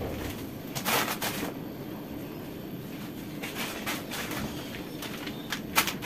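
Plastic-wrapped grocery packages rustling and being set down on a kitchen counter, in a few short bursts over a steady background hum.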